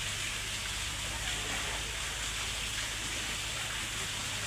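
Steady rushing of running water, an unbroken hiss with a low steady hum beneath it.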